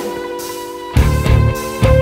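Background music: held guitar-like notes over a drum beat, with heavy low drum hits about a second in and again near the end.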